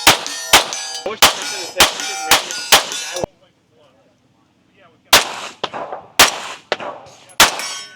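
Rapid shots from a .22 rimfire pistol, about two a second, each followed by the ring of a steel target being hit. Six quick shots, a break of about two seconds, then five more.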